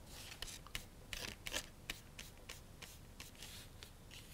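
Flat paintbrush wet with water stroking across marker-coloured paper: a run of faint, short brushing strokes at an uneven pace.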